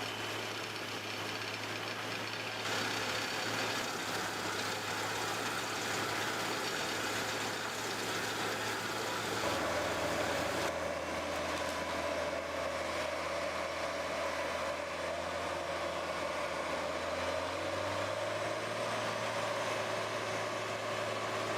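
Large mobile wood chipper's diesel engine running steadily with a low hum. The sound changes abruptly about three and eleven seconds in.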